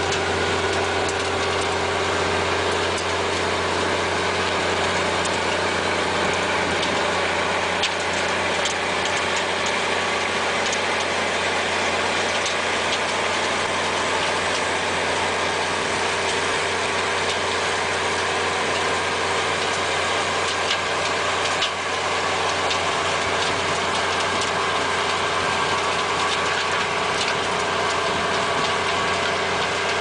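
Engine running steadily at constant speed, with a few light clicks over it.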